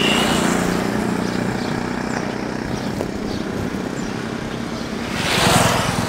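Motorcycle engines running as the bikes ride past on the street, slowly fading. A brief swell of louder noise comes near the end.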